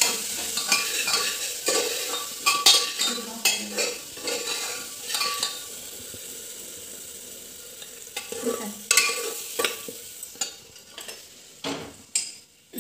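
Metal ladle stirring and scraping spice masala frying in a pressure cooker, with repeated scrapes and clinks against the pot in bursts over a steady sizzle. The stirring strokes come in short runs, with a stretch of sizzle between them.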